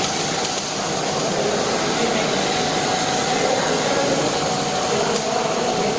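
Steady mechanical drone and hiss of workshop machinery, with no breaks.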